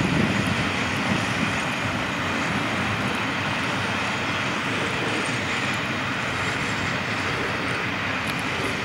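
Freight train's container wagons rolling away along the track: a steady rumble of wheels on rails that fades slightly as the train recedes.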